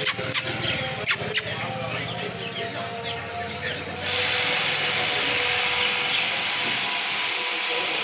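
Caged small birds chirping in many quick, short notes, with a few sharp clicks in the first second and a half. The overall sound changes abruptly about four seconds in.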